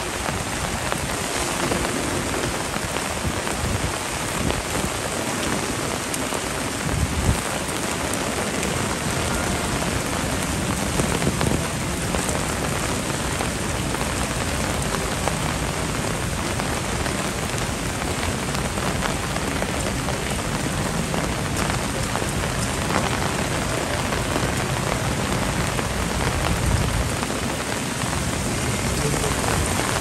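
Heavy rain falling steadily: a dense, even hiss, with a few brief louder spikes now and then.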